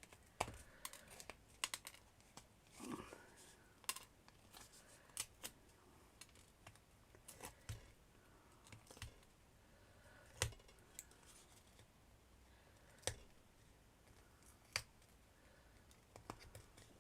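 Pliers snapping and tearing small bits off the edge of a chipboard piece: scattered, irregular small clicks and snaps, the loudest about ten and thirteen seconds in.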